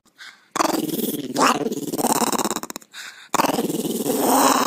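A small white long-haired dog growling in two long, rattling growls, with a short break about three seconds in.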